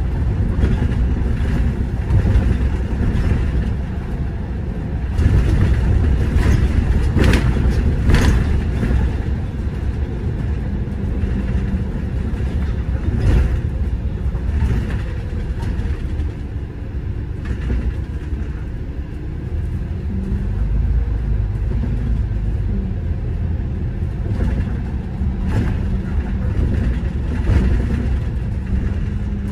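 City bus running along the road: a steady low rumble of engine and tyres, with a few short knocks or rattles, about seven to eight seconds in and again about thirteen seconds in.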